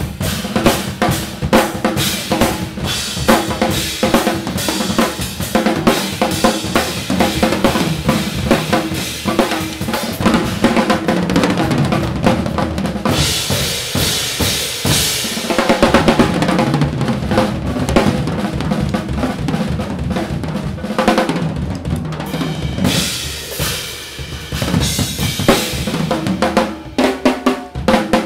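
Two drum kits, Gretsch drums with Sabian cymbals, played together in a free improvised duet: dense snare, bass drum and tom strokes with cymbal hits. About halfway through, loud cymbal wash takes over for a few seconds, and the playing thins briefly a few seconds before the end before picking up again.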